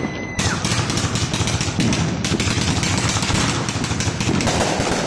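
Fireworks barrage: a brief whistle, then a rapid volley of sharp pops and crackles lasting about four seconds, easing off near the end.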